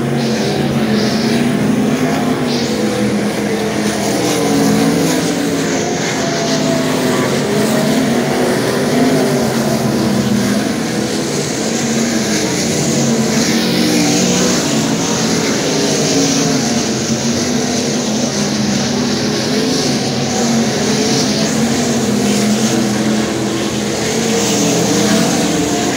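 Several 410 sprint cars' V8 engines running around the dirt track, their engine notes continually rising and falling.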